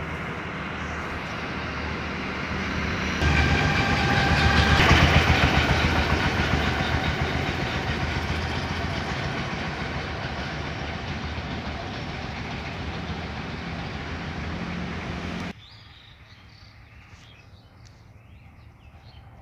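A heavy vehicle passing on the road close by: its engine and road noise swell suddenly about three seconds in, peak, then fade slowly. The sound cuts off abruptly about fifteen seconds in, leaving faint outdoor background.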